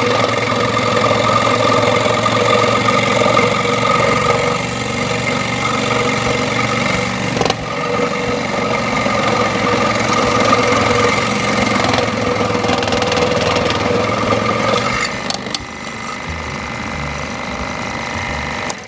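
Ryobi 16-inch variable-speed scroll saw running, its reciprocating blade cutting through a wooden board with a steady mechanical hum and whine. About fifteen seconds in the sound gets quieter.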